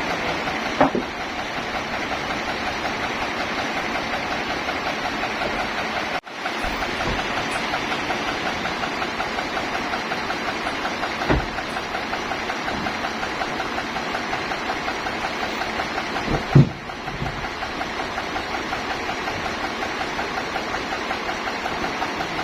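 A sawmill's engine running steadily with an even, pulsing beat. It is broken by a few sharp knocks, the loudest about 16 seconds in.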